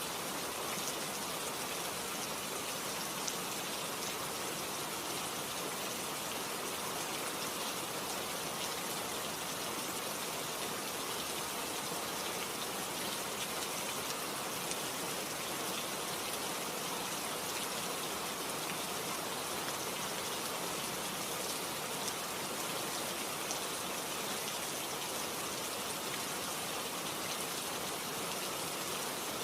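Steady rain falling, an even hiss dotted with the fine ticks of single drops.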